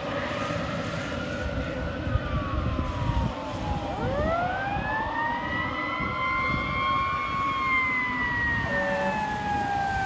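Fire engine siren wailing over the low rumble of the truck: the pitch sweeps down, then about four seconds in climbs again and slowly falls away.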